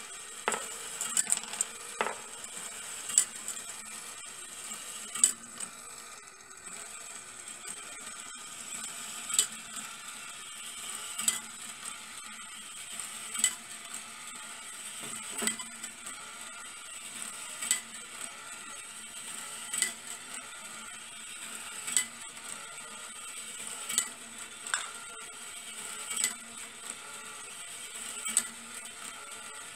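Small DC motor of a brass-wire marble machine running steadily with a high whine and a low hum. Steel balls click and clink against the brass lift and track, irregularly at first, then about once every two seconds.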